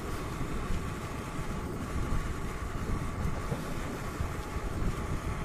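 Wind buffeting the microphone, a steady rumbling noise with gusts that rise and fall throughout.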